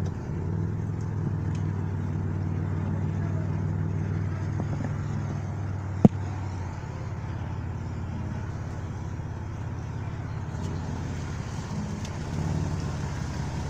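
Car engine running at low speed, heard from inside the cabin as a steady low hum. One sharp click about six seconds in.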